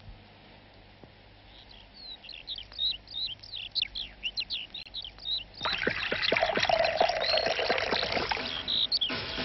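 Small birds chirping, many short quick chirps one after another. About halfway through, a louder rushing noise sets in under them, and chirps carry on over it.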